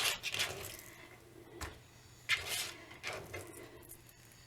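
An onion being cut into large pieces with a kitchen knife on a cutting board: a few sharp knocks and short scraping rustles.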